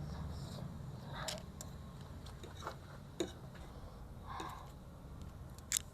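Eating sounds: faint scattered clicks and short mouth and utensil noises from someone still eating, over a low steady hum.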